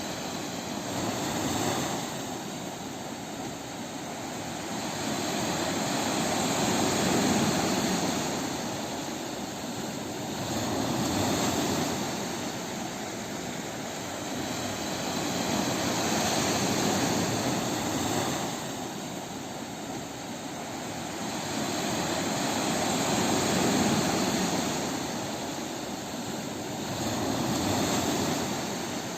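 Ocean waves breaking on a beach: a steady rush of surf that swells and eases as each wave comes in, about every four to five seconds.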